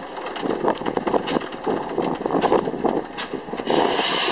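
Small steam engine, a steam-shovel swing engine on the Pence Bull Pup, running with a rapid, even beat. A loud burst of hiss comes near the end.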